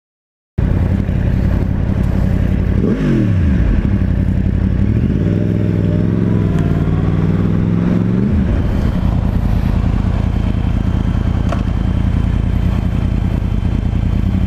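Sport motorcycle engine heard from the rider's seat, cutting in after a brief silence: a quick rev blip about three seconds in, then the engine pulls up in revs and holds before dropping back about eight seconds in, then runs steadily.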